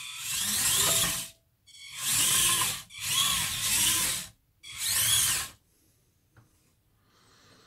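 Small electric drive motors and gears of a radio-controlled 1/16 Bruder CAT compact loader whirring in four bursts, the whine rising and falling in pitch as it drives and turns on the spot with skid steering. The motors stop a little over halfway through.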